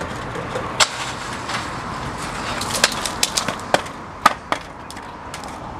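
Skateboard wheels rolling on concrete, then a string of sharp clacks and knocks as the board is popped and clatters away. The loudest knock comes about four seconds in, as the skater bails into the bushes beside the handrail.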